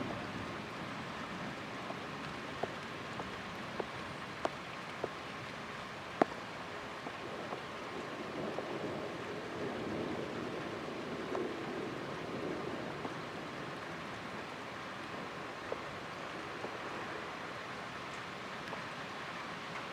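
Steady rain, heard muffled through a towel over the camera. Scattered sharp ticks come from drops landing close to the microphone, and there is a soft swell in the middle.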